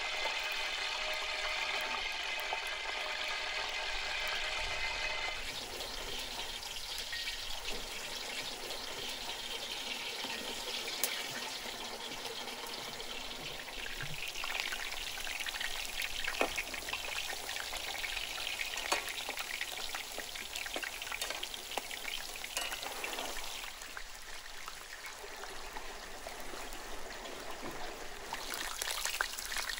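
Whole peeled potatoes deep-frying in hot oil in a wide steel pan: a steady sizzle and crackle that grows busier about five seconds in, with scattered sharp clicks.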